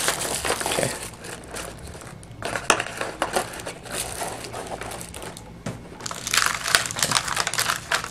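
Packaging crinkling and rustling as it is handled while unboxing a tablet's accessories. It comes in three bursts, with a few sharp clicks among them.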